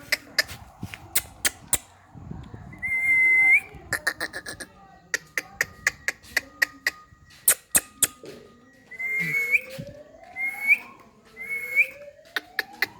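Indian ringneck parrot making short, sharp calls and long rising whistles, amid a run of sharp clicks.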